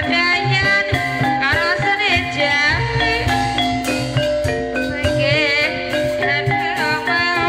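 Javanese gamelan music for an ebeg dance: metallophones and gongs playing stepped melodic notes over drum strokes, with a singer's voice wavering in vibrato above them.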